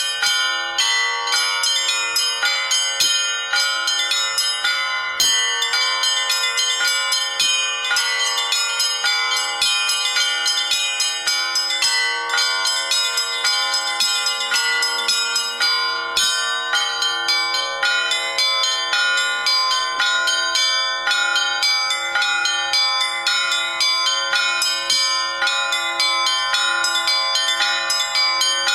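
Bells struck one after another in quick succession, a continuous peal of overlapping ringing tones with a new strike several times a second.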